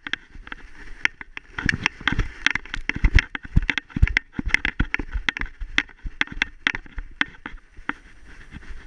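A dog running through snow: a fast, irregular patter of paw strikes and crunches.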